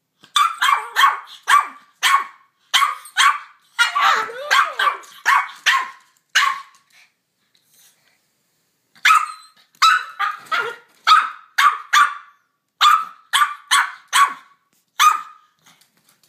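Yorkshire terrier barking, short high-pitched barks in quick succession. They come in two long runs with a pause of about two and a half seconds in the middle.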